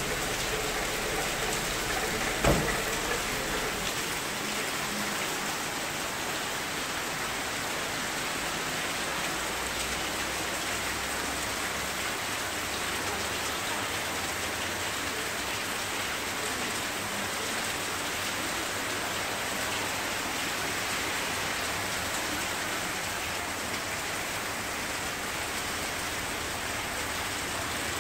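Heavy summer downpour, rain falling steadily and hard on surfaces, with a single sharp knock about two and a half seconds in.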